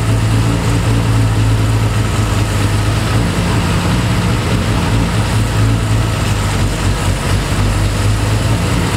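Triumph TR6 straight-six engine idling steadily, with the open intakes of its twin Zenith Stromberg carburettors hissing. An airflow meter is held to a carburettor mouth to check that both carburettors draw evenly at the newly lowered idle.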